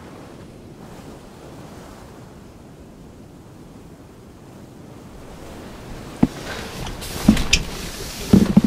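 Steady wash of wind and sea waves. In the last few seconds it grows louder, with wind buffeting the microphone and several sharp knocks and thumps.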